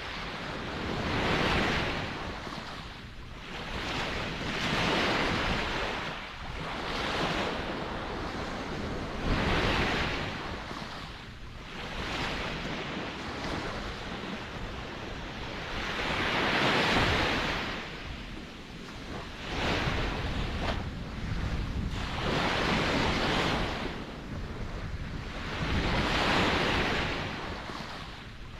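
Ocean surf: waves breaking and washing in, the hiss swelling and fading every few seconds, with some larger surges among smaller ones.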